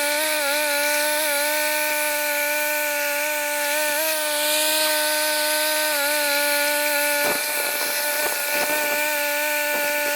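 Norwood LumberMate 2000 band sawmill running with a steady, high-pitched hum that dips slightly in pitch now and then. From about seven seconds in, a series of sharp knocks sounds over it.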